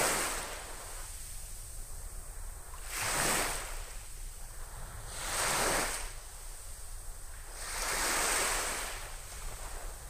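Small waves breaking and washing up a sandy beach, each wash swelling to a hiss and fading away, four of them about every two and a half seconds, over a steady low rumble.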